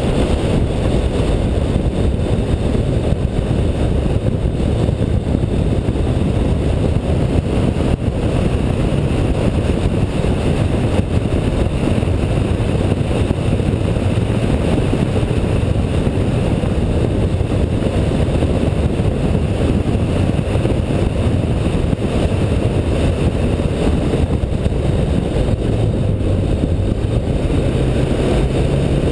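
Car running at speed on a race track, its engine note buried in heavy wind and road noise picked up by a camera mounted on the hood. The engine note steps up in pitch near the end.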